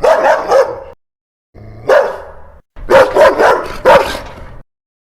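Dog barking in three bursts: a quick run of barks, a single bark, then another quick run, with dead silence between the bursts.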